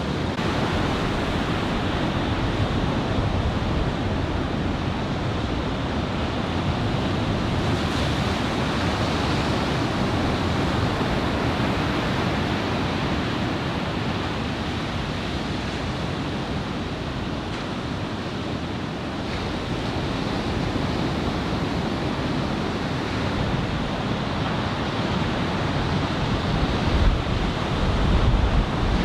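Ocean surf breaking steadily: shoulder-high waves from an incoming typhoon swell. Wind blows on the microphone, with a few stronger gusts buffeting it near the end.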